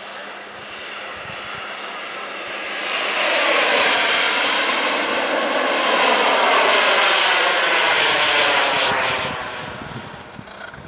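Radio-controlled model jet's small turbine engine during a flying pass: a steady jet roar that swells to its loudest about three seconds in and fades away after about nine seconds.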